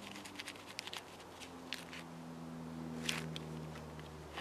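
Bushcraft knife cutting into and prying bark from a fallen birch log: scattered scrapes and crackling snaps of the bark splitting, the sharpest about three seconds in.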